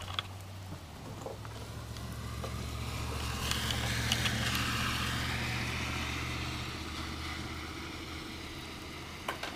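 A vehicle passing on a wet street: the hiss of tyres on water swells to a peak about four seconds in and fades away, over a steady low hum.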